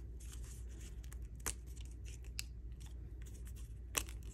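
Die-cut cardstock ephemera handled in the hands, its nested pieces being popped out: soft paper rustling with a few sharp snaps, the loudest near the end.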